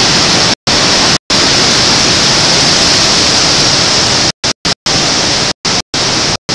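Hurricane-force wind and heavy rain on a camcorder microphone: a loud, steady hiss. The sound cuts out completely for split seconds several times, most often in the second half.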